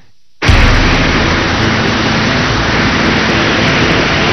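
Torrential rain pouring down in a dense, steady hiss that cuts in abruptly about half a second in.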